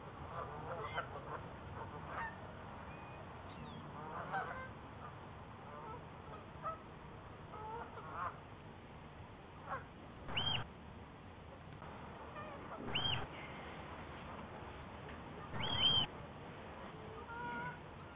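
Geese and other waterfowl calling: scattered softer calls in the first few seconds, then three loud honks about ten, thirteen and sixteen seconds in, the last the loudest.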